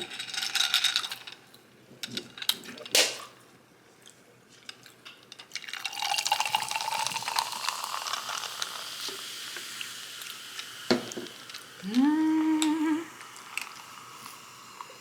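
Close-miked mouth sounds of eating and drinking: a long slurping sip of liquid lasting about five seconds, then a short hummed "mm" that rises in pitch near the end.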